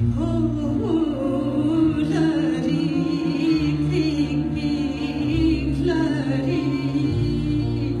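A woman singing with a small acoustic band of double bass, acoustic guitar, violin and cello, the bass changing note slowly under sustained string tones.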